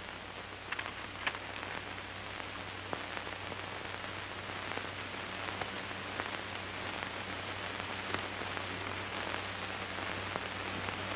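Steady hiss and scattered crackle of a worn optical film soundtrack, with a low constant hum underneath; no other sound stands out.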